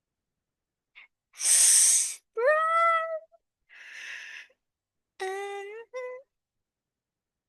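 A person's wordless vocal sounds: a loud breathy exhale, a hummed sound that rises and then holds, a softer breath, and a short level hum that breaks in two near the end.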